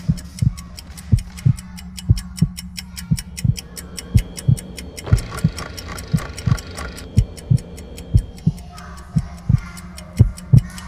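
Sound-effect soundtrack of a short film: a steady pulse of low heartbeat-like thumps, about three a second, over a low hum, with fast clock ticking above it. A buzzing noise joins about five seconds in and stops about two seconds later.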